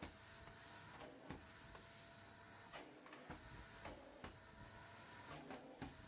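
Faint canister vacuum cleaner at work: a low steady hum with irregular light knocks as its floor nozzle is pushed over a wooden floor.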